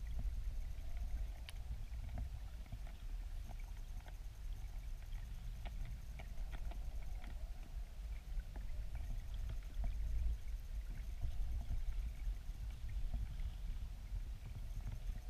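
Low, steady underwater rumble of river current flowing over a weir's stony bed, heard through a submerged camera, with scattered faint clicks throughout.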